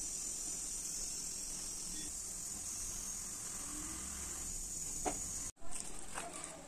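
A steady high-pitched hiss that stops abruptly at an edit about five and a half seconds in. A quieter background with faint clicks follows.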